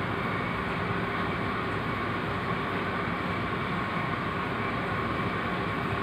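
An air cooler's fan running with a steady rushing noise and a faint steady whine.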